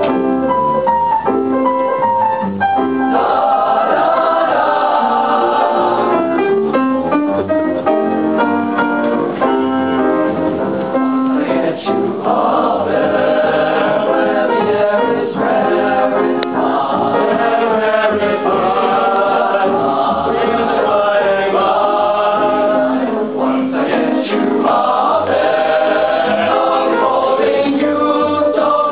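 Boys' choir singing, several voice parts at once, steadily throughout.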